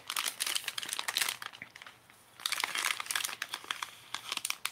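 Plastic bags of soft-plastic fishing baits crinkling as they are handled, in two spells about a second and a half each with a short pause between, then a few light clicks.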